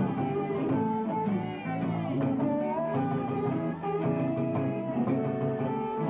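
Live electric blues band playing an instrumental passage: electric guitar notes with pitch bends over a bass line.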